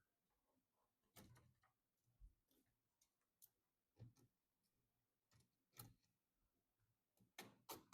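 Near silence broken by faint, irregular clicks and taps, about nine of them, from hands handling PC parts during assembly.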